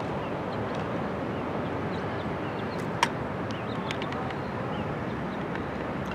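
Open-air field hockey match sound: a steady rush of wind on the microphone, with one sharp crack of a hockey stick striking the ball about three seconds in.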